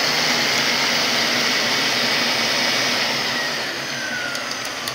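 A big electric drill spins the input shaft of an Eaton Fuller 18-speed Road Ranger gearbox, its gears turning in oil with the box in gear: a steady motor and gear whirr. After about three seconds it starts slowing, with a falling whine.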